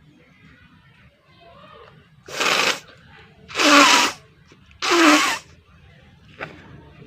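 A person blowing their nose hard three times in quick succession, each blow a loud rush of air about half a second long.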